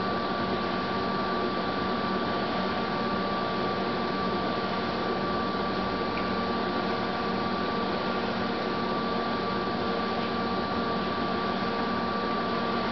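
Large Lodge & Shipley Magnaturn engine lathe running under power, a steady mechanical hum with a constant high whine from its drive.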